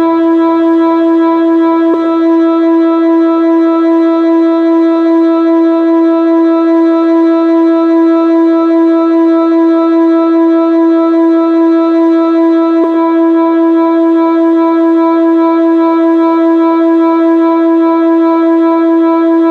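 Whelen WPS-2906 electronic outdoor warning siren sounding a loud, steady tone that holds one pitch without rising or falling.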